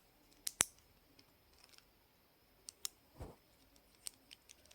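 Small plastic Lego pieces clicking and tapping as they are handled and pressed on, to cover the round studs with flat tiles. The clicks come singly and in pairs, the loudest about half a second in, with a quick run of them near the end.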